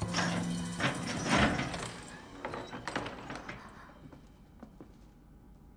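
Background music ends about a second in, then a wooden prison cell door is opened with a few knocks and clanks that fade away.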